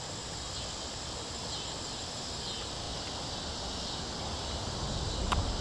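Steady insect chorus of shrill chirring, with a low rumble underneath and a single faint click near the end.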